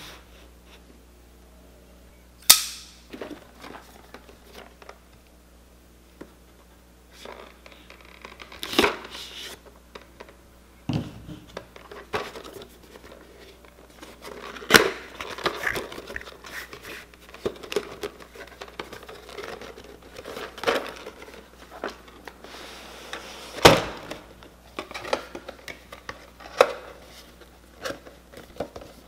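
A cardboard figure box being handled and opened by hand: a few sharp snaps and taps of cardboard, with softer rustling, scraping and sliding of the box between them.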